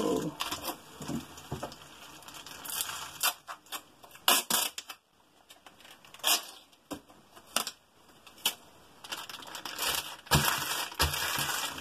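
Loose cardboard jigsaw puzzle pieces rustling and clicking against each other as hands break up and rake through the pile, in irregular bursts with quieter spells about halfway and louder, denser rustling near the end.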